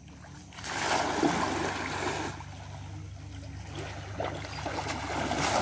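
A cast net thrown into a shallow, muddy stream, hitting the water with a splash about a second in. Water then keeps sloshing as a man sinks down into the water beside it.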